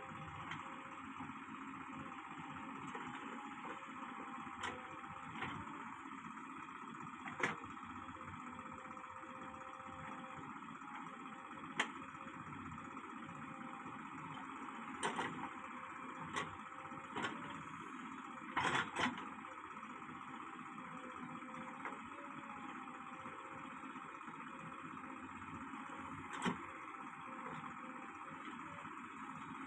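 Diesel engines of a JCB 3DX backhoe loader and a tractor running steadily, with a short sharp metal clank now and then, about eight in all, from the backhoe's bucket and arm as it digs soil and dumps it into the tractor's trolley.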